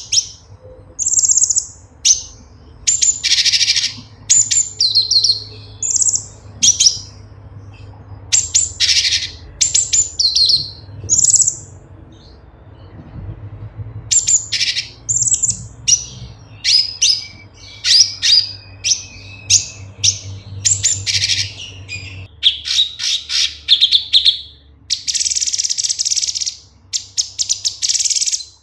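Cucak cungkok, a leafbird, singing a fast, varied run of high chirps and whistled notes. There is a short pause about halfway through, and the notes turn into dense rapid chattering in the last third.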